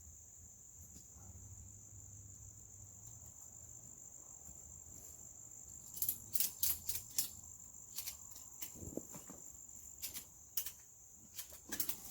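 Steady, high-pitched drone of insects. About halfway in, a run of sharp clicks and knocks starts and comes in irregular clusters until the end.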